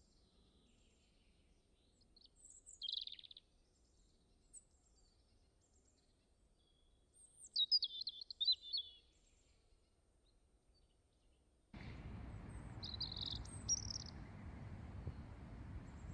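Wild birds calling outdoors: a short high call about three seconds in, a longer run of quick notes a few seconds later, and more calls near the end. About two-thirds of the way through, a steady low rushing noise comes in abruptly under them.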